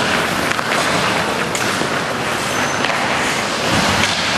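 Ice hockey in play: skates scraping the ice over a steady rink noise, with a few light stick or puck clicks.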